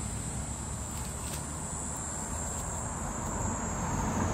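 Steady high-pitched insect chirring, typical of crickets, over a low outdoor rumble.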